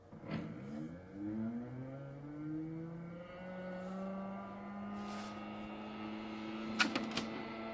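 3D printer's stepper motors whining as the print head moves, the pitch rising over the first few seconds and then holding steady. A few sharp clicks come near the end.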